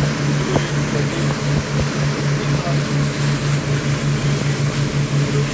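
Fast ferry under way at speed, heard from inside the cabin: a steady engine drone that pulses about four times a second, over the rush of water and wind from the churning wake.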